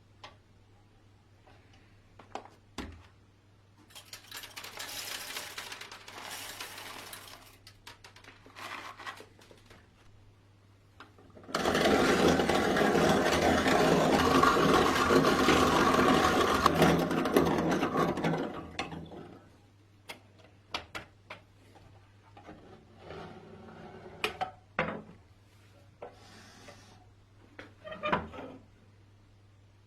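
A restored vintage coffee grinder grinding beans: a loud, dense grinding noise starts suddenly about eleven seconds in and fades over some seven seconds. Scattered clicks and taps come before and after it.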